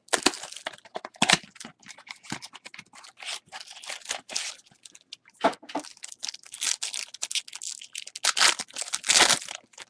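Foil trading-card pack wrapper being torn open and crinkled by hand, an irregular run of crackling rustles. It is loudest at the start, again about a second in, and in a last flurry near the end.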